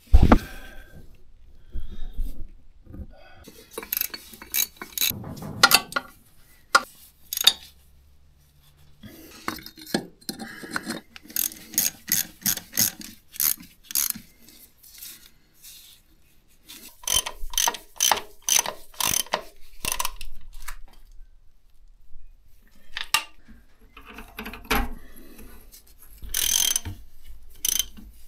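Socket ratchet wrench clicking in quick runs of strokes as a bolt is turned, with clinks of metal tools and parts in between.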